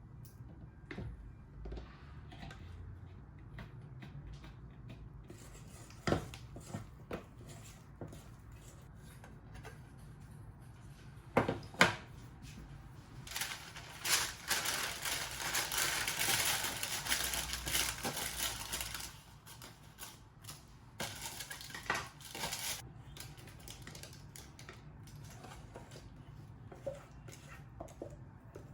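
Kitchen utensils and bowls clinking and knocking, with a few seconds of steady scraping or stirring noise about halfway through.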